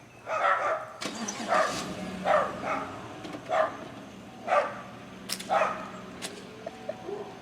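Dog barking, about seven barks roughly once a second, over a steady low vehicle hum.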